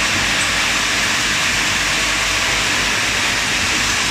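Automatic lotion pump assembly machine running, with its vibratory parts feeders: a steady, even mechanical whirring noise with no distinct clicks or knocks.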